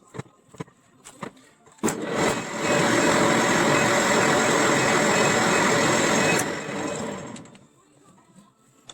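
Angle grinder switched on, running steadily for about four seconds, then switched off and winding down. A few small handling clicks come before it starts.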